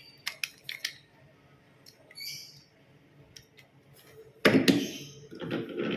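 Toy trains being handled: a few light clicks and knocks, then a louder clatter about four and a half seconds in, followed by a rustling, rattling stretch.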